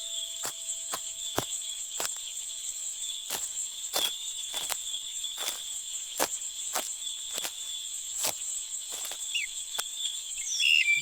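Crickets chirring steadily in a forest ambience, with regular footsteps about every half second to second. Near the end a small bird chirps a few times.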